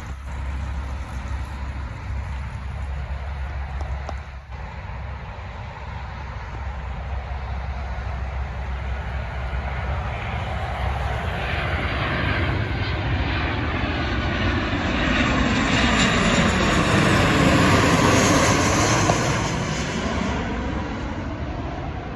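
Jet airliner passing low overhead: its engine noise grows steadily louder, peaks about eighteen seconds in with a sweeping, phasing hiss as it goes by, then fades.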